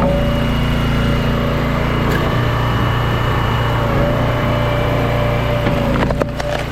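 Small gas engine of a firewood log splitter running steadily under a wavering whine, with a few sharp knocks near the end.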